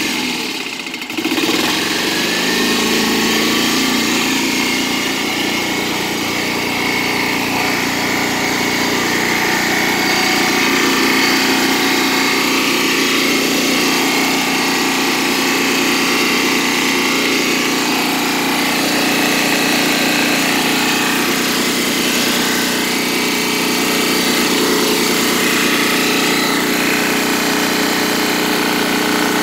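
A truck-mounted Lombardini 6,000-watt diesel generator running steadily just after being started; its engine note settles and steps up about a second in, then holds an even, continuous drone.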